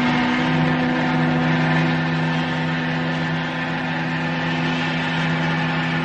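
SS Athenia's steam whistle sounding one long, steady blast on two notes, a lower note joining the higher one about half a second in.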